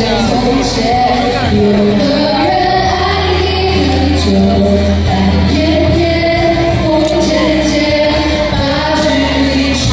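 Music with singing: a song with held bass notes under a sung melody.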